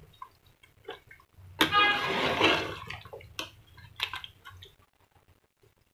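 Metal ladle stirring and lifting beef trotters in thick curry in a metal pot: wet sloshing, drips and light clinks against the pot. About a second and a half in, a louder pitched tone sounds for about a second.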